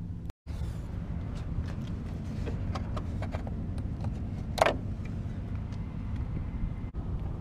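A pickup truck's engine idles with a steady low hum, while a plastic bulb socket is handled behind the front bumper, giving scattered light clicks and taps. About halfway through there is one louder, sharper sound.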